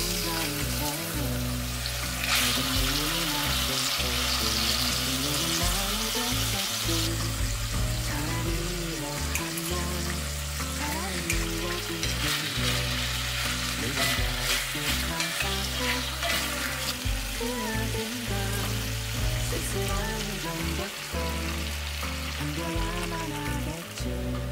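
Chicken wing pieces and ginger slices sizzling in hot oil in a pot, stirred with a wooden spatula; the sizzle is loudest for a few seconds from about two seconds in. Soft background music plays throughout.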